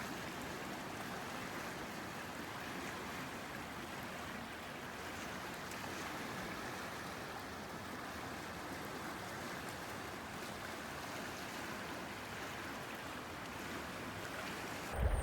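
Steady rush of the Yakima River's current flowing past the bank, running a little high.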